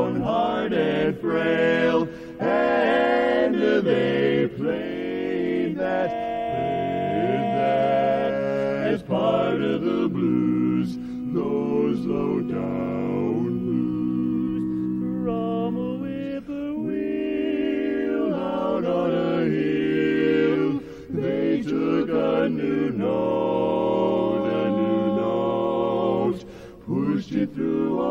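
Male vocal quartet singing a cappella in close four-part harmony, holding long chords and sliding between them.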